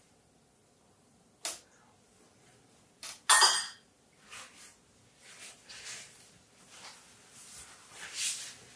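A person tasting sauce from a spoon: a small click, then a short slurp about three seconds in, the loudest sound. After it come soft rustles of a paper napkin wiping the mouth, the loudest of them near the end.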